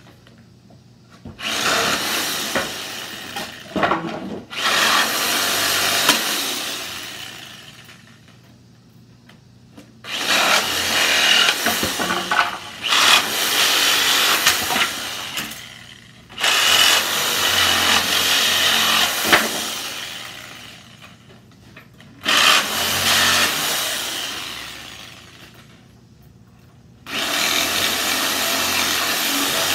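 Hyper Tough reciprocating saw with a Lenox blade cutting through pallet nails. It runs in about six separate stretches of a few seconds each, and each one fades away before the next begins.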